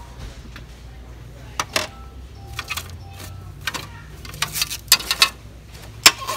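Stacked shiny plastic candy-shaped trays clattering as they are shuffled and one is pulled out from underneath: a string of short sharp clicks and knocks spread through.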